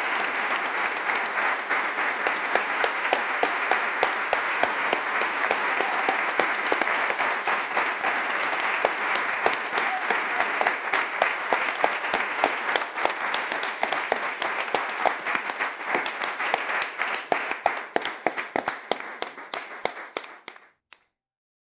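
Crowd applauding, a dense steady clapping that thins out to scattered individual claps and stops near the end.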